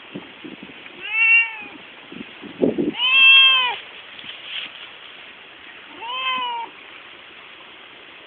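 Domestic cat meowing three times, each meow rising then falling in pitch, the middle one the longest and loudest. A few soft low thumps sound between the first two meows.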